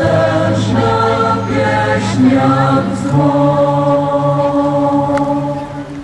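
Choir singing long held notes in slow chant-like chords over a low sustained note, fading near the end.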